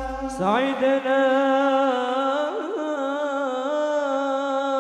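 A solo male voice singing a long held note of an Arabic sholawat, with no drums. About half a second in it slides up in pitch, then holds steady with a slight waver in the middle.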